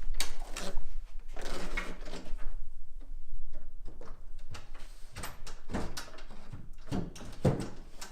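Antique pine wardrobe side panel being handled and slid into its slot: wood scraping on wood, then a run of knocks and thumps, the heaviest near the end as the panel seats.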